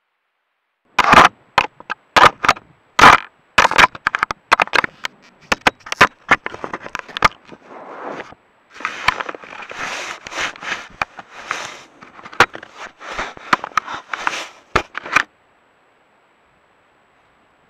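American black bear handling the trail camera at close range: a dense run of loud knocks, clicks and scrapes as it noses and rubs against the camera housing, stopping suddenly near the end.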